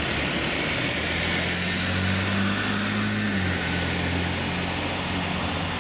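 Classic cars driving past at low speed: a steady engine drone with tyre and road noise, its pitch dropping a little about three and a half seconds in.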